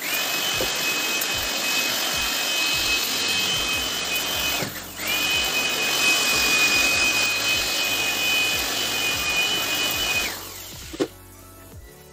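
Handheld corded electric air blower running at full speed with a steady high whine, switched off for a moment about five seconds in, then running again until it cuts off about ten seconds in.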